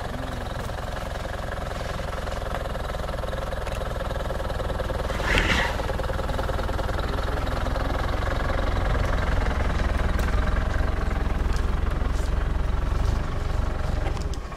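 A vehicle engine idling steadily, growing somewhat louder, with one short louder noise about five and a half seconds in. It stops suddenly at the very end.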